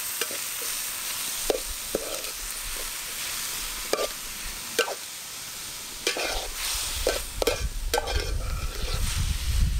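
Onions and sliced tomato sizzling in hot oil in a metal pot while a metal spoon stirs them, scraping against the pot in irregular strokes. A low rumble comes in about six seconds in.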